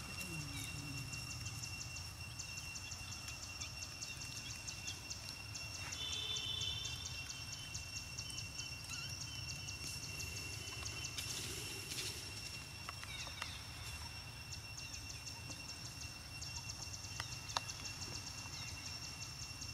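Outdoor ambience: a steady high-pitched whine over a low rumble, with a brief chirp about six seconds in and a few faint clicks.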